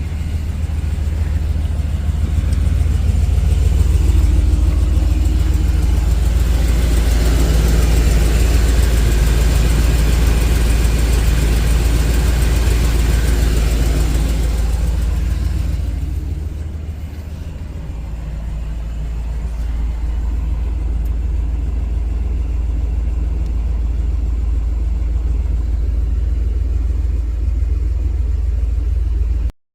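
Winnebago P30 motorhome's engine running steadily with a deep rumble. It gets louder through the first half, eases off briefly a little past halfway, then carries on evenly until it cuts off at the end.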